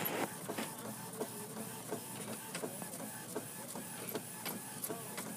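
HP OfficeJet 4630 inkjet all-in-one printer running, its mechanism giving a regular clicking with short whirs about three times a second.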